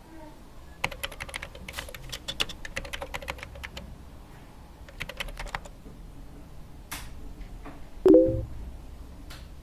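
Computer keyboard typing in two quick runs of key clicks, then a few single key presses. About eight seconds in comes a short, loud chime: a Facebook chat new-message notification as a reply arrives.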